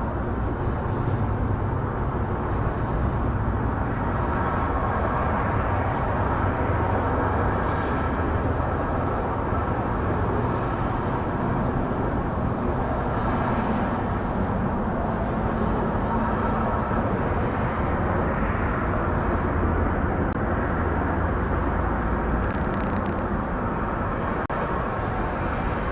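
Steady outdoor rumble and hiss, heaviest in the low end, with no pauses. About 22 seconds in there is one brief high-pitched sound lasting under a second.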